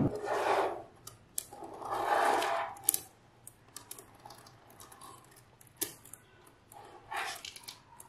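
Small magnetic balls in a block sliding and rubbing on a table, with a few drawn-out swishes (the longest about two seconds in) among scattered light clicks as balls snap together.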